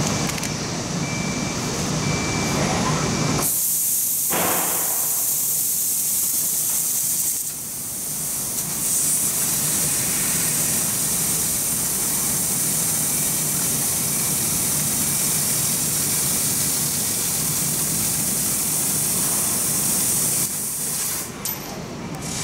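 Laser cutting machine cutting steel sheet: the assist gas hisses loudly from the cutting nozzle, starting abruptly a few seconds in and cutting off near the end, after a lower steady machine hum with a faint whine.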